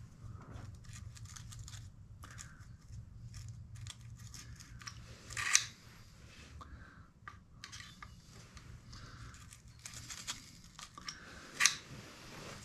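Small metal hand tools clicking and scraping at the ignition points of a Honda CA160 motorcycle engine, with two sharper clinks, one about five and a half seconds in and one near the end. A low steady hum runs underneath and fades about ten seconds in.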